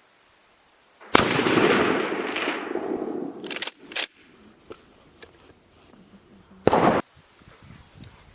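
A single rifle shot from a Schmidt-Rubin G11 in 7.5x55 Swiss, with a long fading echo, about a second in. A few sharp clicks follow, and a short loud burst comes near the end.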